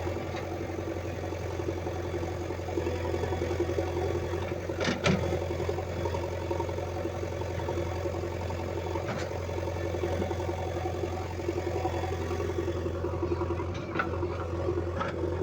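A heavy machine's engine running steadily at idle, with a few sharp clanks: the loudest about five seconds in, others near nine and fourteen seconds.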